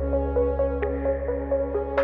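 Ambient electronic background music: a sustained synthesizer chord over a held bass note, with a light tick a little under a second in.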